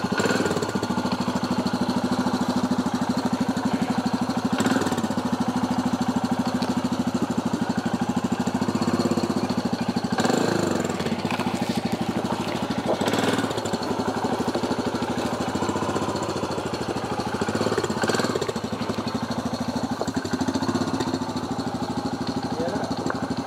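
Royal Enfield single-cylinder motorcycle engine running at a steady idle with an even, rapid pulse, picking up briefly a few times.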